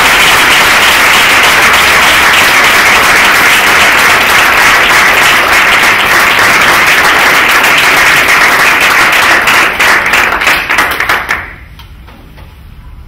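Audience applauding, loud and dense, thinning to scattered separate claps after about ten seconds and dying away near the end.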